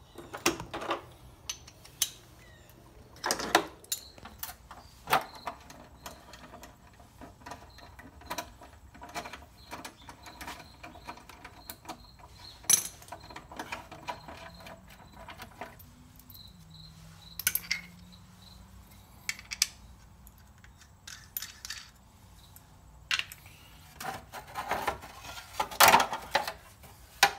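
Irregular clicks, clinks and knocks of hand tools and small metal parts, with a few longer rattling stretches, as a motorcycle's front fender and its brackets are unbolted and taken off.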